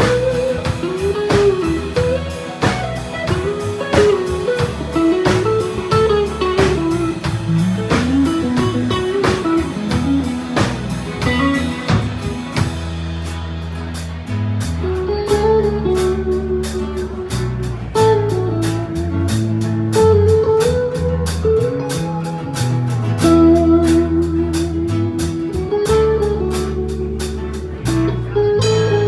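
Live country band playing an instrumental passage: a Telecaster-style electric guitar plays the melody over a bass line, with drums keeping a steady beat.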